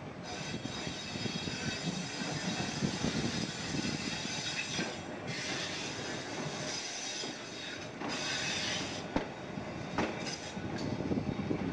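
Replica Pacific Electric 'Red Car' streetcar rolling past on its track, steel wheels squealing high on and off over a low rumble, with a few sharp clicks from the wheels near the end.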